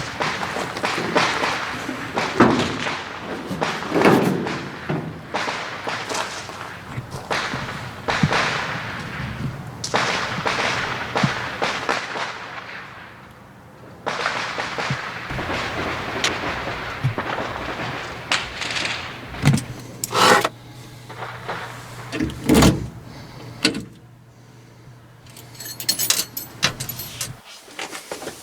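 Thumps, clicks and key jangling of someone getting into an old truck cab and handling the keys, with door-like knocks. About halfway through a steady low hum starts, then cuts off near the end.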